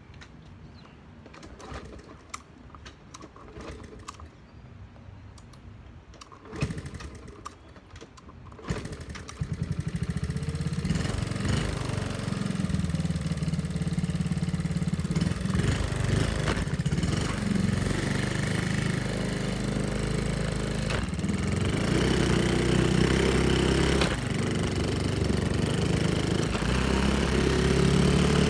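A few clicks and knocks, then about nine seconds in the small four-stroke single-cylinder engine of a Honda Monkey mini bike starts and runs steadily, its valves freshly adjusted. It gets louder in the last few seconds as the bike gets under way.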